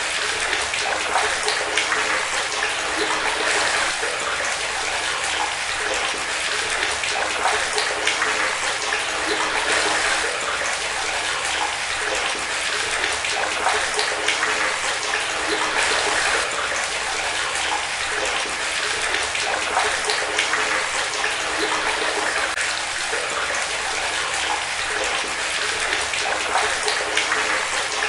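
Tap water running steadily in a continuous splashing stream, with no break.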